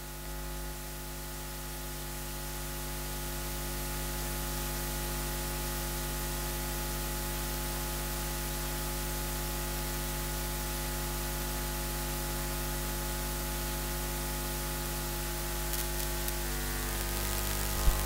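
Steady electrical mains hum with hiss from a sound system, holding one unchanging drone and growing a little louder over the first few seconds. A sharp click comes near the end.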